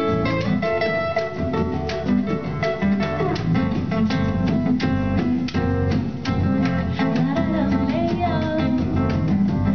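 Live acoustic band music: an acoustic guitar strumming with percussion hits, and a woman's singing voice coming in near the end.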